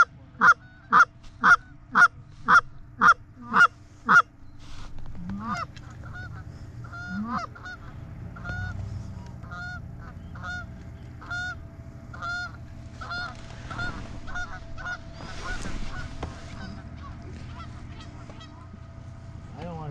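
Canada geese honking: about nine loud, evenly spaced honks, two a second, for the first four seconds, then fainter, scattered honks and clucks from the flock overhead.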